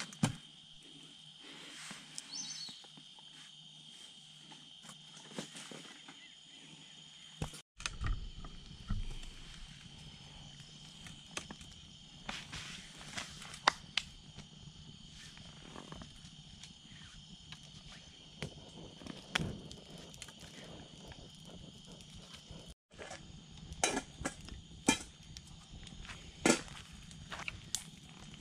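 Steady high-pitched insect trill, with scattered sharp clicks and pops from a small wood campfire crackling, the loudest pops coming near the end.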